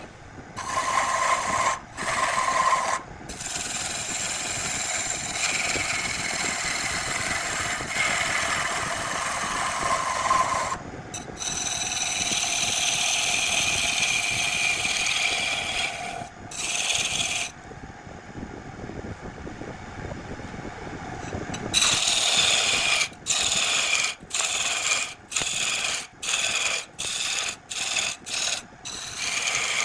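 Turning tool working jackfruit wood spinning on a lathe: long steady passes broken by short pauses, then, about two-thirds through, a run of short strokes at about two a second, each cutting off sharply.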